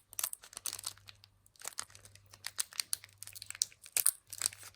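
Foil Pokémon booster pack wrapper being torn open and crinkled by hand: a run of irregular crackling and ripping.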